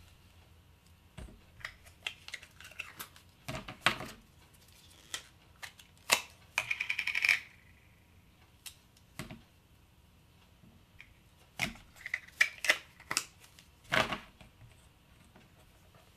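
Plastic Play-Doh toy tools and moulds being handled on a tabletop: scattered clicks and taps in clusters, with a quick rattle about halfway through.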